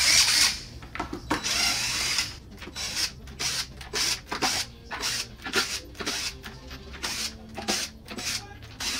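Cordless drill running in many short spurts, backing out the screws that hold the 8-inch subwoofers in their enclosure.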